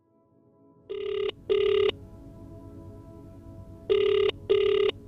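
Telephone ringback tone in the double-ring cadence, heard twice: two short beeps, then a pause, then two more. It is the tone of a call ringing out before it is answered. A low steady background hum runs underneath.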